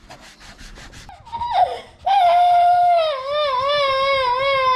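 A small child scrubbing marker off a table with quick rubbing strokes, then breaking into a short falling whimper and, about two seconds in, a long, loud, wavering wail: he is crying because he is upset.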